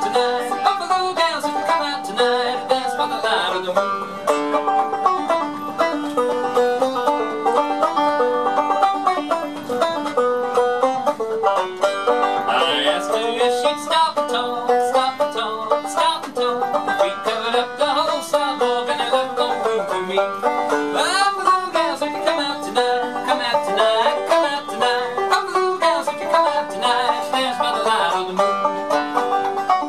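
Banjo played solo: an instrumental tune of quickly picked notes.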